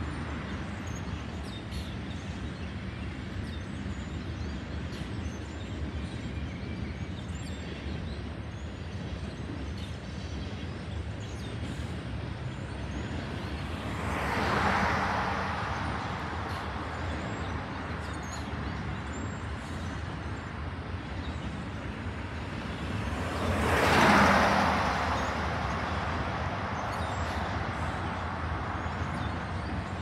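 Two cars passing close by on a two-lane road, one about halfway through and a louder one about three-quarters of the way through, their tyre and engine noise each swelling and fading over a few seconds, over a steady low background rumble.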